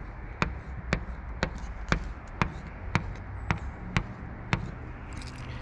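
A metal key scraped repeatedly across paint protection film on a truck's painted panel: short, sharp ticks about twice a second, about nine strokes in all, stopping about a second before the end.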